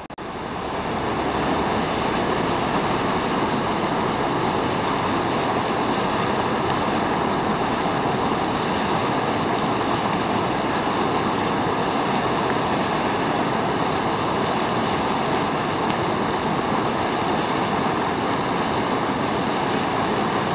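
Boiling hot spring churning hard: a loud, steady rush of bubbling water that rises in over the first second or two and then holds level.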